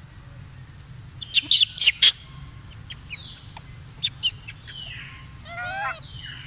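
Baby macaque squeaking: short, high, falling chirps and a wavering squeal near the end. A burst of sharp, loud clicks about a second in is the loudest sound.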